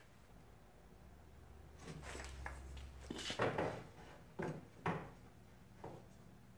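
A wooden board knocking and scraping as it is laid on a radial arm saw's wooden table and pushed against the fence, with the saw switched off. A low rumble comes first, then a few separate wooden knocks, the loudest about three and a half seconds in.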